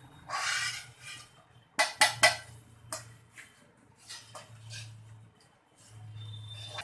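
Metal kitchen utensils clinking and scraping: a scrape near the start, then a quick run of sharp clanks about two seconds in, followed by lighter knocks.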